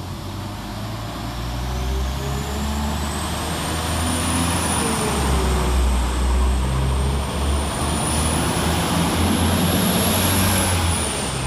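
Northern Class 195 diesel multiple unit pulling away, its diesel engines running under load with a low rumble that shifts in steps, and a faint high whine that rises and falls above it.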